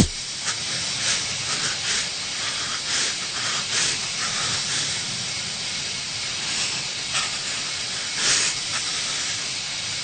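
Steady hiss of steam escaping from a wrecked car, broken by irregular faint crackles.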